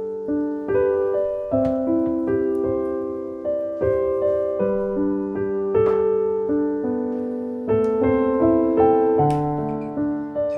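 Background music: a gentle piano melody of sustained notes at an even, unhurried pace.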